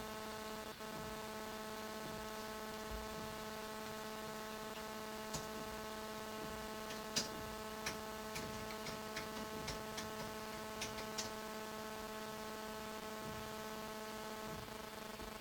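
A steady electrical hum sounding at several pitches at once, with a scatter of light, sharp clicks in the middle stretch.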